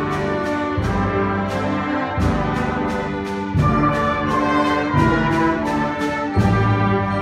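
Youth symphony orchestra playing a classical piece, strings with brass prominent, sounding a run of accented chords that strike about once or twice a second.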